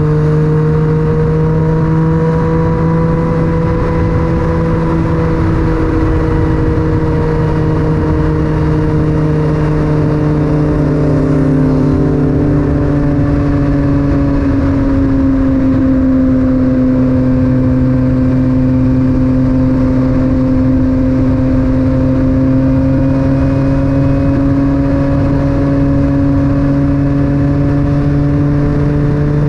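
Yamaha MT-09 three-cylinder engine running through an Akrapovic titanium exhaust while the bike cruises, its pitch easing down about halfway through and slowly climbing again, with steady wind and road rush over the helmet-mounted microphone.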